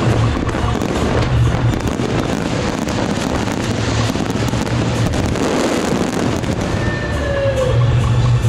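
Fireworks crackling and bursting in a dense barrage, with drum-led festival music under them, the music's steady beat clearest at the start and near the end.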